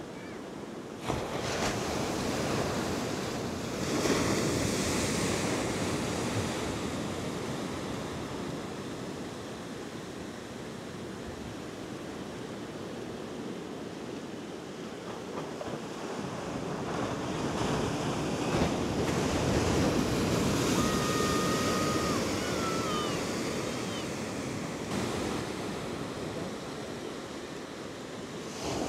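Sea surf: waves breaking and washing in over shoreline rocks, the roar swelling and easing, loudest about four seconds in and again around twenty seconds in.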